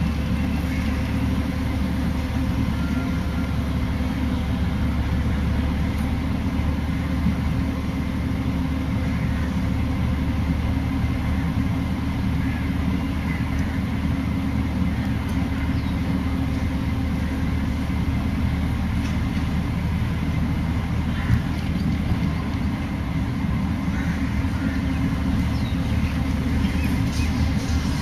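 A motor vehicle's engine running steadily at low speed: a constant low drone with road noise, and one brief knock about three quarters of the way through.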